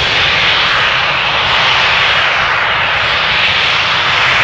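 Steam tank engine venting a jet of steam from low on its side in a loud, steady hiss that cuts off sharply near the end.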